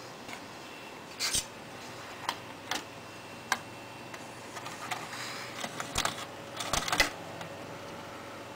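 Panasonic UJ-845 slot-loading DVD drive taking in a CD: a few separate clicks as the disc is fed into the slot, then a denser run of clicking and mechanical rattle as the drive draws it in, ending in two sharp knocks. A steady computer hum runs underneath.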